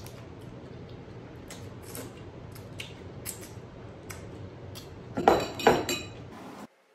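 A person eating noodles from a bowl: chewing, with small clicks and utensil clinks against the dish. A little after five seconds in come two loud mouth sounds in quick succession, and the sound then cuts off abruptly.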